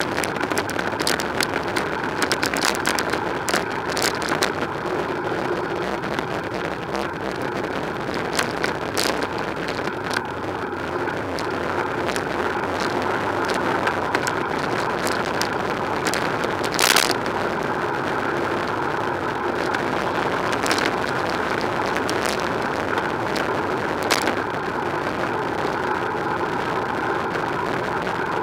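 Riding noise from a bicycle on city streets, picked up by a bike-mounted camera: a steady rush of wind and tyres with frequent sharp clicks and knocks. The loudest knock is about 17 seconds in.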